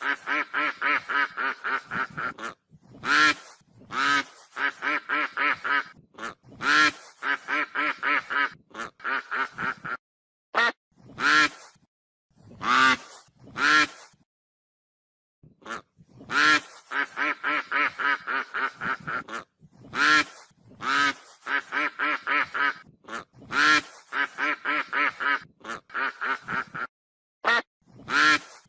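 Goose honking: runs of short, quick honks, about five a second, broken every few seconds by a single longer, louder call, with a brief pause near the middle.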